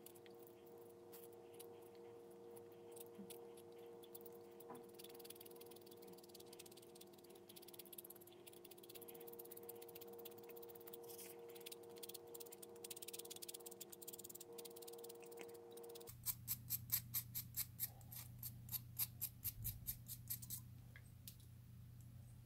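Pastel pencil turned in a small handheld Caran d'Ache blade sharpener: faint scraping as the blade shaves wood and lead. Near the end comes a run of quick, sharp ticks, about four or five a second, for some four seconds. A steady low hum sits behind it.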